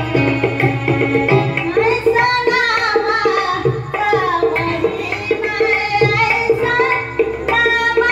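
Marathi devotional song: tabla playing a steady rhythm, with a solo voice coming in about two seconds in and singing a long, ornamented melodic line that ends about a second before the end.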